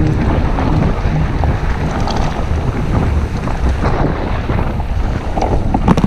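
Wind buffeting the camera microphone on a fast mountain-bike descent over a rough dirt trail, with the rattle of the bike over stones and a sharp knock near the end.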